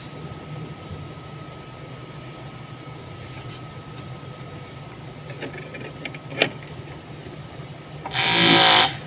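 A steady low hum with a faint steady tone. A sharp click comes about six and a half seconds in, then a loud, rapidly repeating mechanical noise lasting under a second near the end.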